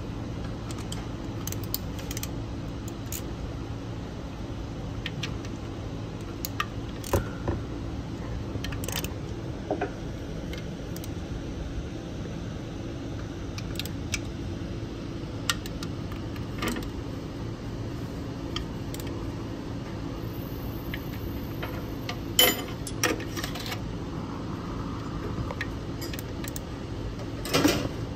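Scattered metallic clicks and clinks of a socket wrench and extension on the bolts of an engine oil pan as it is tightened up against fresh sealant, with a small cluster of clicks about two-thirds of the way through and another near the end. A steady low hum runs underneath.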